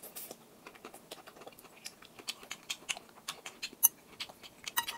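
Close-miked eating of noodles: irregular wet mouth clicks and smacks of chewing, with a short slurp just after the start. A sharper, ringing click comes near four seconds.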